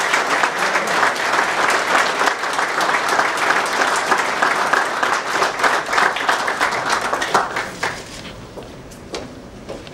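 Audience applauding, dense clapping that dies away about eight seconds in, leaving a few scattered claps.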